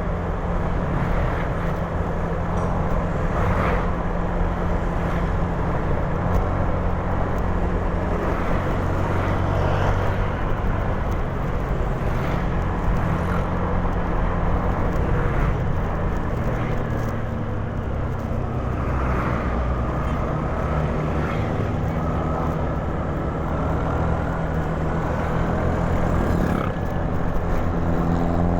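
Motor scooter engine running steadily in traffic, under a constant rush of road and wind noise. A faint whine rises slowly in pitch in the last third.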